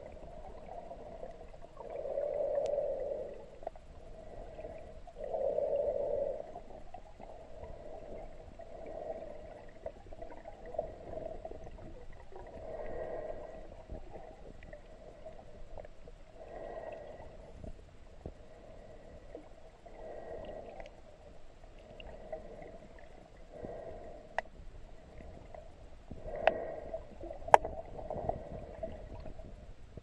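Muffled breathing of the swimmer filming, heard underwater: a low swell of sound about every three to four seconds. A few sharp clicks come near the end.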